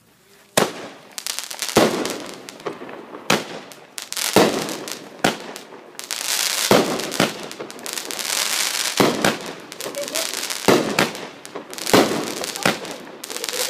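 A 200-gram consumer fireworks cake firing shot after shot, with sharp reports roughly every second. Each shot's crackling tail rises to a burst of white strobe, and dense crackling fills the gaps between the reports.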